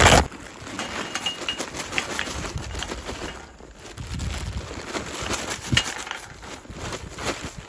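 Coconut charcoal package being handled: irregular rustling and small clicks, with a few brief high chirps.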